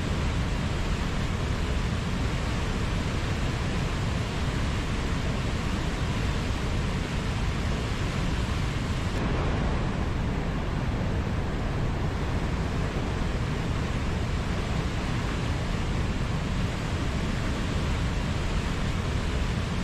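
River water flowing, a steady, even rush of moving water.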